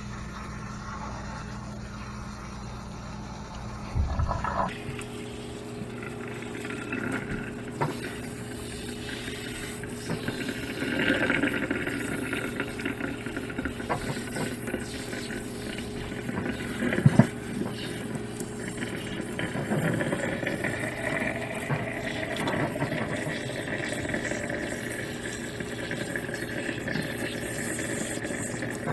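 Water from a kitchen sink pull-out sprayer running and splashing onto wet dreadlocks while hands work the hair, with a sharp knock about 17 seconds in.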